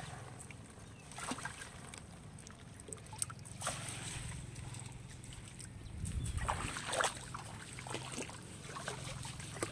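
Water sloshing and splashing in irregular short strokes over a steady low hum, with a louder surge of sloshing about six to seven seconds in.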